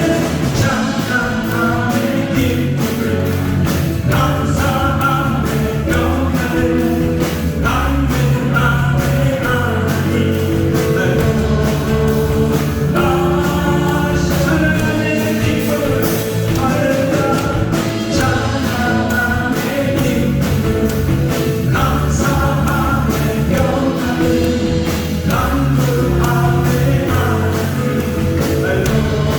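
Live church worship band playing contemporary praise music, with a steady drum beat under sustained chords.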